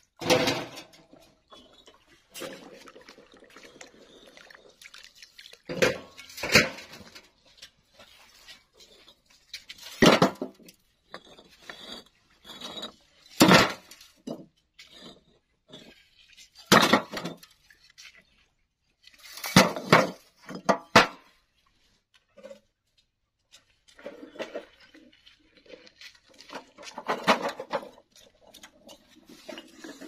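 Hollow fired-clay bricks being stacked into a steel wheelbarrow: sharp clinks and clacks of brick on brick and brick on the metal tray, every few seconds.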